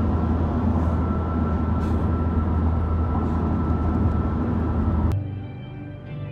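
Steady road and engine drone inside a moving car's cabin, deep and even; it cuts off suddenly about five seconds in.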